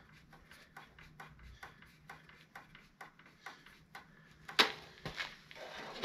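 Rear brake adjusting nut spun by hand up the threaded brake rod of a 1970 Honda CB/CL 350, making faint, irregular metal ticks and clicks, with one sharper knock about four and a half seconds in.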